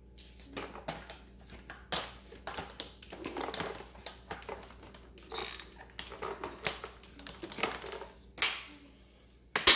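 Plastic parts of a switched-off Dyson upright vacuum being handled: scattered clicks, knocks and rustles, with one sharp knock near the end.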